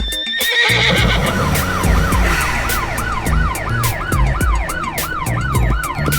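Emergency-vehicle siren sound effect in a fast wail, rising and falling about three times a second, over background music with a steady beat. A horse whinny trails off at the start.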